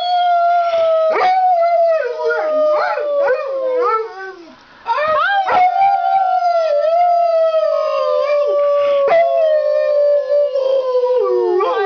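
Black Labrador howling: two long howls, each slowly falling in pitch, with a short break between them. In places a second, lower wavering voice howls along with it, as in a group howl.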